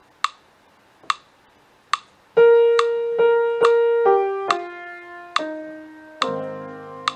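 A metronome-style click track ticking about once every 0.85 s, alone at first as a count-in, then a piano comes in about two and a half seconds in, playing a slow descending line in time with the clicks and moving into fuller chords near the end.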